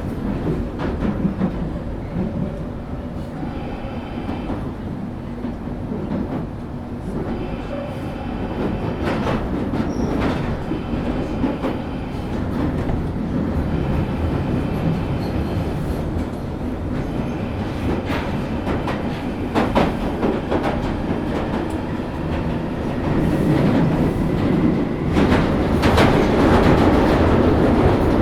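London Underground Northern line train running through the tunnel, heard from inside the carriage: a steady rumble of wheels on rail with clicks over the rail joints, growing louder in the last few seconds.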